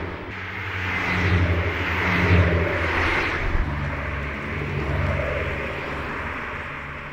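Abarth 500e electric cars driving past, their external sound generator playing an artificial petrol-engine note over tyre noise. The note swells as the cars pass in the first few seconds, changes pitch about halfway through, then fades as they move away.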